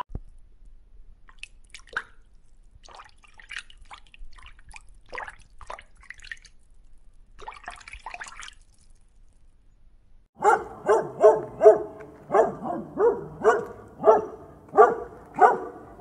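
Faint scattered underwater clicks and pops, then about ten seconds in a dog starts barking, a quick run of barks about two or three a second.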